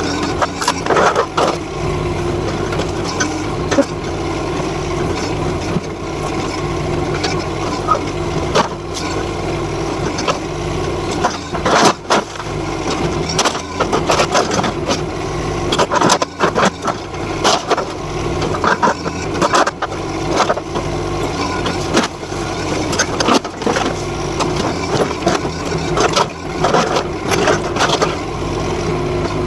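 NT18K mini excavator's engine running steadily under hydraulic load while its bucket tears into a wooden shed, with repeated cracks, crashes and clatter of breaking boards and sheet metal, heaviest in the middle of the stretch.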